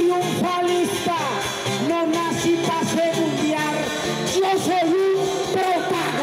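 A man singing improvised paisa trova verses into a microphone, in long held phrases over a steady instrumental accompaniment.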